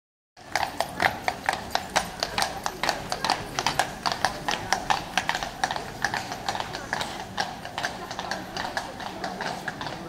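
A carriage horse's hooves clip-clopping on a stone-paved street, a quick, steady run of sharp hoofbeats that starts about half a second in and grows a little fainter toward the end as the carriage draws away.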